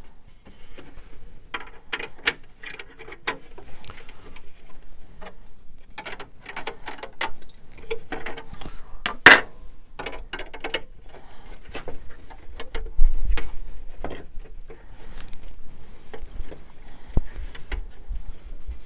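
Hard plastic parts of an RC truck hard body, the chrome grille and front bumper, clicking and tapping against each other as they are handled and test-fitted onto the body. A sharper click comes about nine seconds in, and a dull knock around thirteen seconds.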